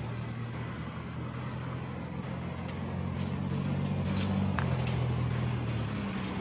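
A steady low engine hum, like a motor vehicle running nearby, swelling a little in the second half. Several short, high chirps or clicks sound over it in the middle.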